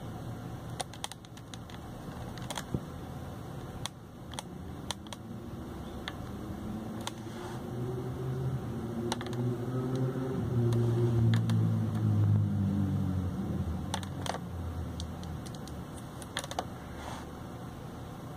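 Plastic buttons on a Pioneer DEH-1280MP car stereo's front panel clicking as they are pressed, a dozen or so scattered presses. In the middle a low drone swells up, is loudest about two-thirds of the way through, and fades away again.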